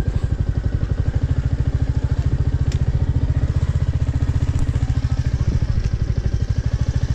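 Motorcycle engine running as the bike is ridden, its exhaust a steady, rapid, even beat.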